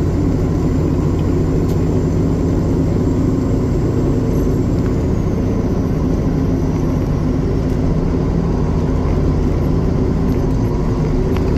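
Heavy-haul semi truck's diesel engine pulling steadily and hard under a heavy load on a steep uphill climb.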